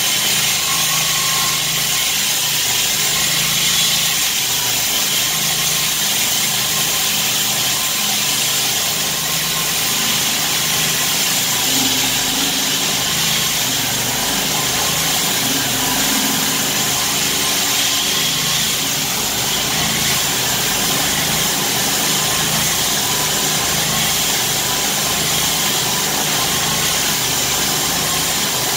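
Core Cut concrete-cutting saw rig running steadily while cutting concrete, with a faint wavering whine over a constant mechanical drone.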